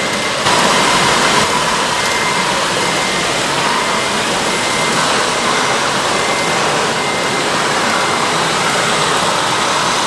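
Steady engine sound from RC model trucks over the din of a busy hall. A faint high beep repeats about twice a second.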